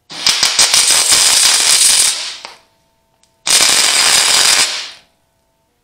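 Wire-feed welder arc crackling in two bursts, the first about two and a half seconds and the second about a second and a half, as a nut is welded onto a broken bolt stub so it can be backed out.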